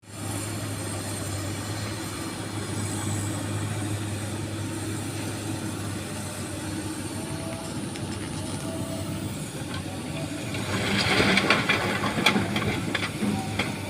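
Excavator's diesel engine running steadily, then, about ten seconds in, a louder clatter of small stones rattling and knocking for a few seconds as a load is dumped into the dump truck bed.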